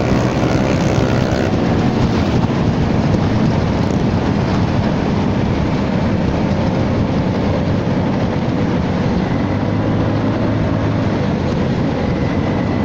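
Steady wind rush on the microphone while riding a 2018 Honda Forza 300 scooter at speed, with the single-cylinder engine's drone underneath. The exhaust, fitted with a baffle insert, runs quiet.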